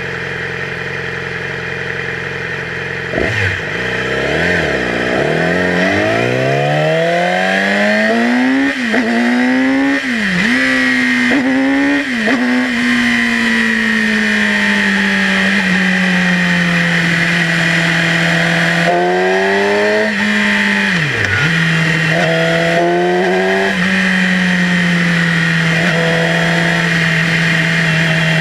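Yamaha YZF-R6 inline-four sport bike engine idling, then pulling away. Its revs climb with quick upshifts about three times in succession, then it settles into cruising with a couple of brief throttle changes. Heard from a microphone behind the windscreen, with a steady rush of wind.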